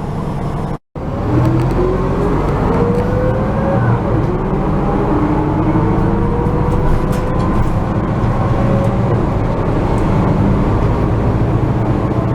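Sightseeing bus running, heard from inside the cabin: a steady low engine hum with whines that rise in pitch as it picks up speed. The sound cuts out completely for a split second just under a second in.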